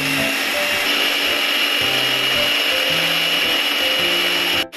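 Electric mini blender chopping garlic cloves coarsely, its motor running steadily with a high, even whine.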